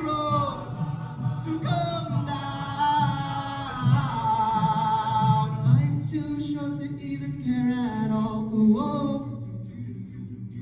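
A cappella group singing close harmonies: held vocal chords that slide between pitches over a low sung bass line. The upper voices drop out about nine seconds in, leaving only the low voices, softer.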